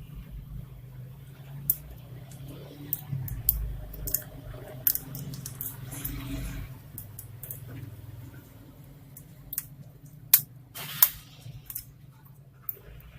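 Scattered small clicks and taps of laptop parts being handled and worked apart during disassembly, with two sharper clicks about ten seconds in, over a steady low hum.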